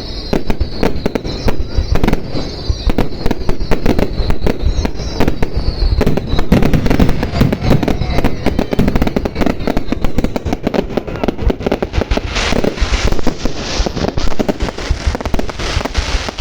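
Fireworks display: a dense, unbroken barrage of bangs and crackles. Short whistles sound over the first several seconds, and a spell of bright high crackling starts about twelve seconds in.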